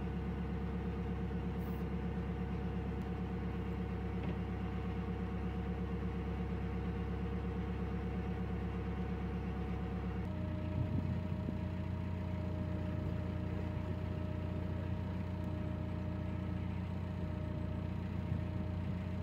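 A narrowboat's diesel engine running steadily while under way, a constant low note with a fast even beat. About ten seconds in the note steps down and settles lower, as the engine is throttled back.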